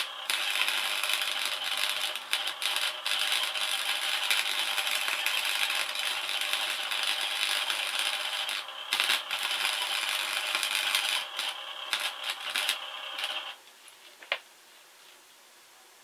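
MIG welding arc burning, a dense crackling sizzle held for about thirteen seconds, broken by a few short gaps in its last few seconds before it stops. A single sharp click follows shortly after.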